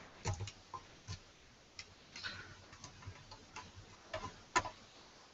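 Faint, irregular clicks and ticks of a screwdriver working the screws out of a small metal mini-PC chassis, about a dozen over the few seconds.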